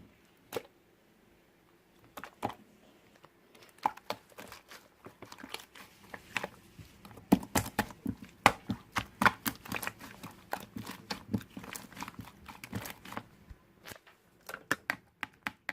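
Irregular small clicks, taps and crinkling handling noises, sparse at first, coming thick and fast in the middle, then thinning out.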